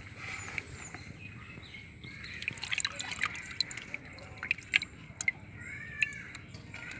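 Water dripping and splashing in a plastic tub as a wet hand lifts small clown knifefish fingerlings out, with many irregular small drips and splashes.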